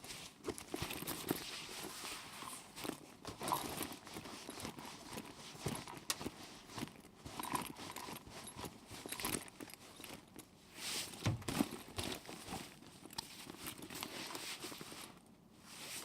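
A backpack rattling and jostling with each jogging stride: an uneven, rhythmic clatter of its contents knocking about, with a short lull near the end.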